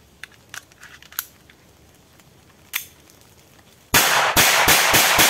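Traumatic (rubber-bullet) pistol fired in a rapid string, about half a dozen sharp shots in just over a second, starting about four seconds in. Before them, a few faint clicks of the pistol being handled.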